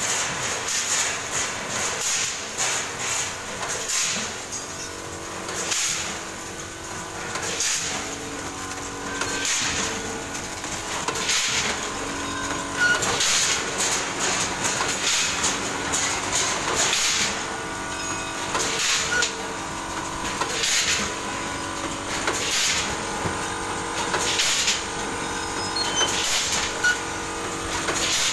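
Automatic multihead-weigher packing machine running as it fills and seals snack packets: a steady machine hum with a clack that repeats every second or two.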